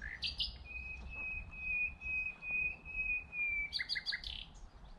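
A songbird singing: a few short high notes, then one long, even whistled note held for about three seconds, ending in a quick run of short notes.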